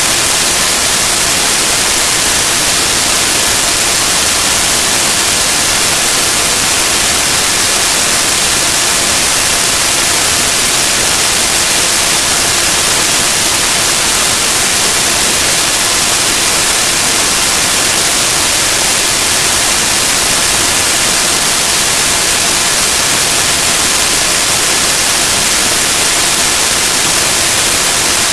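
Loud, steady static hiss with a few faint steady tones buried in it, unchanging throughout, with no voice or other sound coming through.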